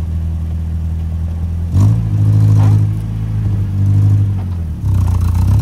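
Truck engine running with a steady low note, pulling harder and louder three times, about two, four and five seconds in, as the truck creeps forward under load.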